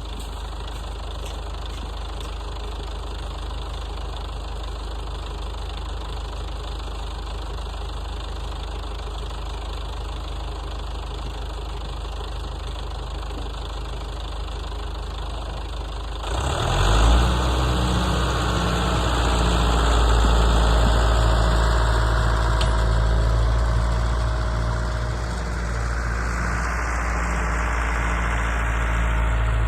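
Allis-Chalmers 6080 tractor's diesel engine idling steadily; about sixteen seconds in it is throttled up and runs much louder under load, working to lift and place a hay bale.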